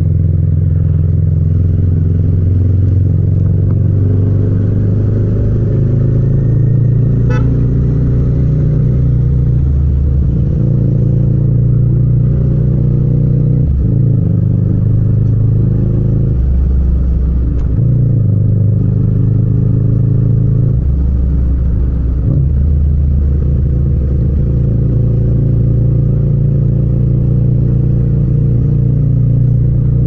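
Yamaha MT-07's 689 cc parallel-twin engine running under throttle at city speed. Its note climbs, then breaks briefly twice around the middle as the rider changes up from third to fourth gear.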